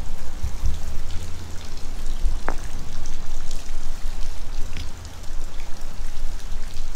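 Rain falling and dripping, over a steady low rumble, with a single sharp click about two and a half seconds in.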